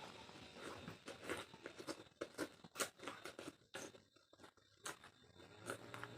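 Close-up mouth sounds of chewing and biting boiled pork: irregular wet crunches and smacks, a run of them from about a second in to near the end.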